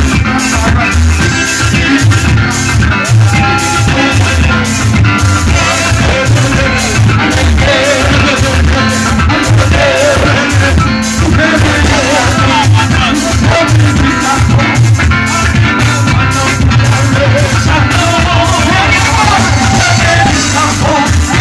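Live band music with a steady drumbeat, heavy bass and keyboard.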